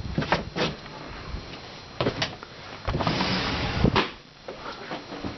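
A few sharp clicks and knocks, with a scraping rustle lasting about a second just before a final knock near the four-second mark: handling noises from work at the furnace.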